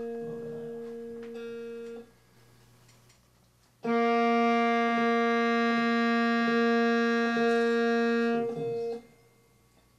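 Music from a single instrument: one long sustained note fades out about two seconds in, and after a short pause a second long steady note is held for about five seconds, with slight regular breaks in it.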